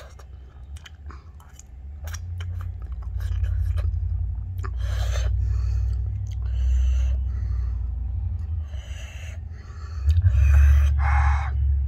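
Close-up chewing and mouth sounds of a person eating instant noodles, with small clicks of a fork against the plate. A low rumble runs underneath from about two seconds in.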